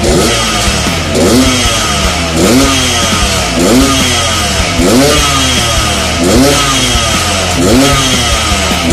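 A Yamaha RX King's 135 cc single-cylinder two-stroke engine revved in repeated throttle blips, about one every second and a bit, each rising and falling in pitch.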